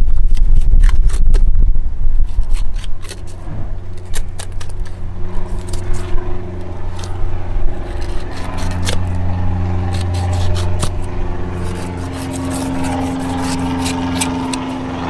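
Fillet knife scraping over a permit's rib bones as the fillet is cut free, with many small sharp clicks. A heavy low rumble fills the first three seconds, then a steady engine drone sets in at about four seconds.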